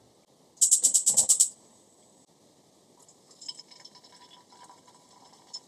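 A quick rattling run of about ten sharp strokes, under a second long, about half a second in. From about 3 s in, small drops of starch batter sizzle faintly in a pot of heating frying oil.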